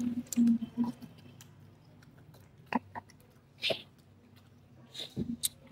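Boys eating golgappas (pani puri) as fast as they can: scattered short chewing and mouth noises, with brief muffled mumbles in the first second.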